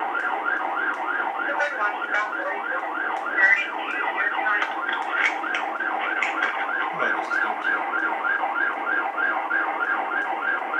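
Police car siren on the fast yelp setting, rising and falling about three times a second without a break.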